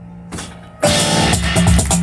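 Live instrumental music: a steady bagpipe drone holds under a quiet stretch with one short cymbal-like hit, then a little under a second in the full band comes in loudly, piano and driving percussion playing with the bagpipes.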